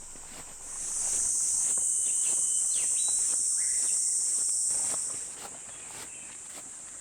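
Cicadas buzzing in one steady high-pitched drone that swells loud about a second in and fades back down after about five seconds. A few short bird chirps sound in the middle, with faint footsteps on the dirt path.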